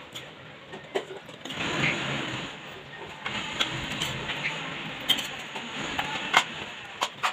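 Steel serving spoons scraping and clinking against steel pots and a steel mixing bowl as cooked vegetables and scrambled egg are spooned onto boiled rice, with a few sharp metallic clinks among the scraping.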